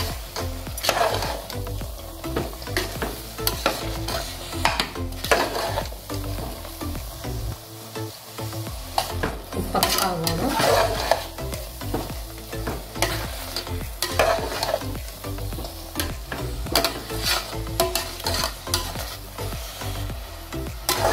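A metal spoon stirring and scraping thick jackfruit curry in a steel pressure cooker, in irregular strokes against the pot's sides and bottom.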